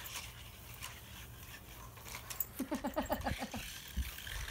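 A voice giving a quick run of about eight short, falling-pitched sounds in about a second, a little past the middle, with a low thump near the end.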